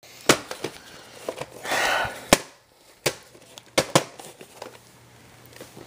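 A VHS tape case being handled: a few sharp plastic clicks and knocks, with a brief rustle or slide a little before the middle.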